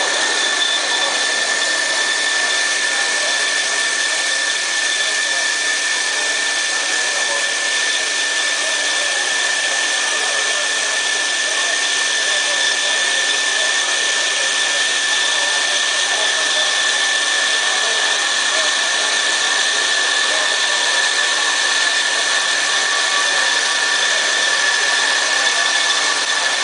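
Metal-cutting band saw machine running, a steady hiss with a steady high whine over it that holds unchanged throughout.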